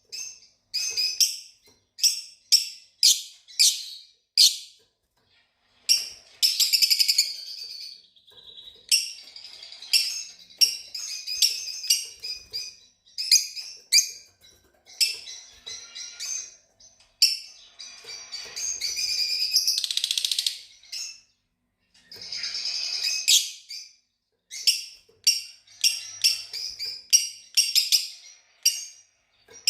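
Fischer's lovebirds chirping and chattering: a quick series of sharp, high chirps, broken by a few longer, buzzy runs of chatter.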